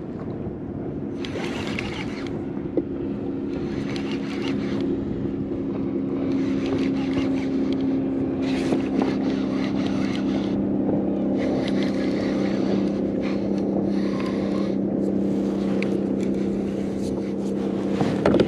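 A steady mechanical hum at several even pitches, growing a little louder about six seconds in and then holding, with short bursts of hiss every second or two.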